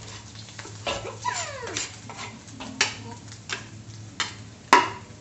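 A cleaver scrapes and knocks against a wooden cutting board over a wok as chopped shallot and garlic are tipped in, with several sharp knocks, the loudest near the end. A high falling whine is heard once about a second in, slipping down in pitch.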